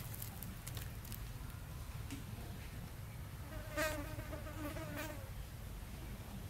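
A flying insect buzzes past for a second or so about halfway through, its wavering hum rising and falling, over a steady low rumble of wind and a few faint clicks.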